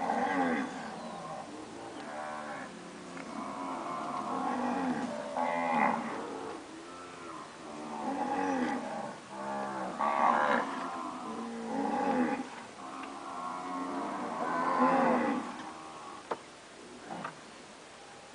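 A herd of recently calved Nelore cows mooing, many calls overlapping one after another. A couple of sharp clicks come near the end.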